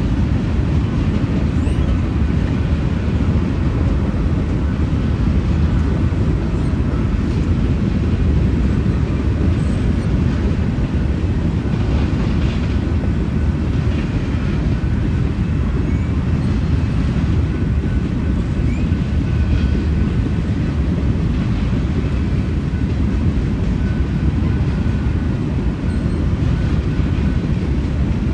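Union Pacific freight train's covered hoppers and tank cars rolling past: a steady, unbroken low rumble of steel wheels on rail.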